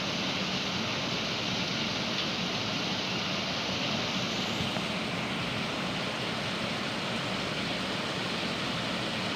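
Heavy rain pouring steadily, an even hiss with no distinct drops or thunder. About halfway through it turns hissier and brighter and stays that way.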